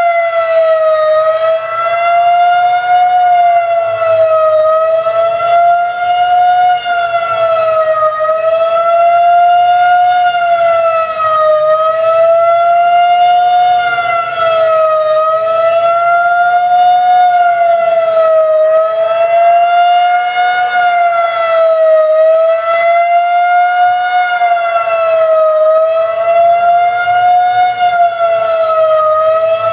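Federal Signal 2001-130 civil defense siren sounding loud and near full pitch. Its tone dips slightly and climbs back about every three and a half seconds, a fast wail signal.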